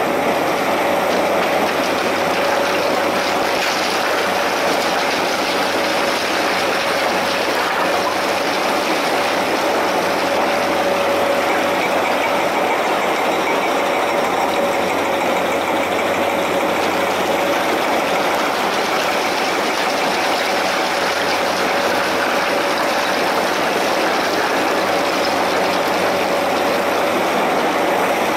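New Holland crawler excavator's diesel engine and hydraulics running steadily. It is a constant drone with an unchanging whine over it.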